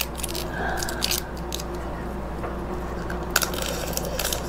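Close-miked eating sounds of cooked crab: shell being pulled apart by hand and bitten, with a few sharp clicks and cracks over a steady low hum.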